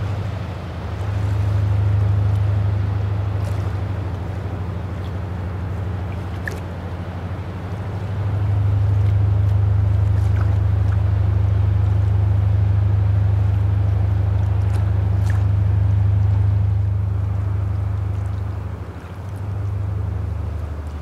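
Tugboat diesel engines passing, a steady low drone that gets louder about eight seconds in and dips briefly near the end.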